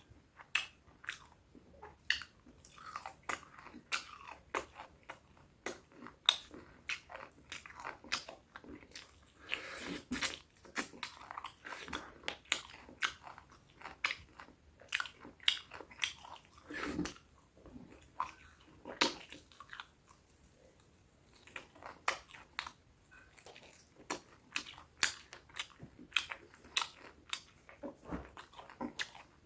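Close-miked eating: chewing and biting food, with irregular crisp crunches and wet mouth clicks about one or two times a second.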